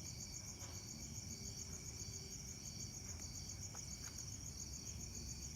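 Crickets chirping steadily in the background: a fast high trill with a slower chirp repeating about one and a half times a second just below it, and a few faint ticks.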